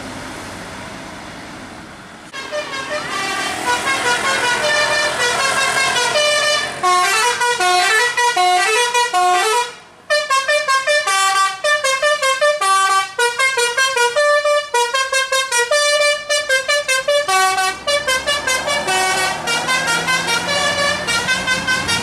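Tour bus's musical 'telolet' air horn playing a quick tune of stepped notes, starting about two seconds in and going on for some twenty seconds with a brief break about halfway; road and engine noise before it starts.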